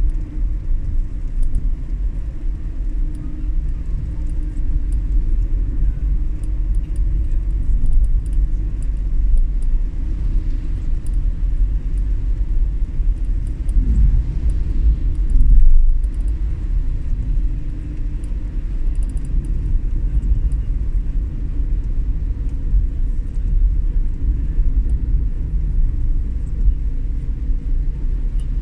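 Steady low rumble of a vehicle on the move, heard from on board, with a brief rise in pitch about halfway through.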